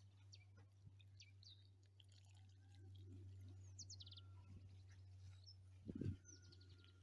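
Faint bird chirps and short trills in near silence, with a soft low thump about six seconds in.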